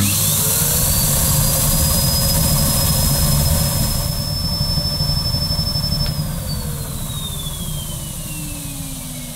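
Numatic Nuvac commercial canister vacuum cleaner with a 620-watt motor switched on with its hose sealed against a vacuum gauge for a suction test: the motor whine rises over about a second and holds steady. About six seconds in it is switched off and the whine falls away as the motor runs down.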